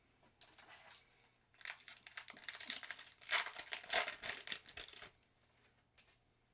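Crinkling and crumpling of a foil trading-card pack wrapper being handled: a brief rustle, then a louder run of dense crackling lasting about three and a half seconds.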